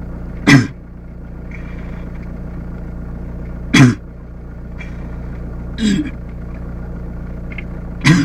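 A drunk man makes four short, loud guttural noises from the throat, each falling in pitch and a few seconds apart, over the steady hum of a car's engine heard inside the cabin.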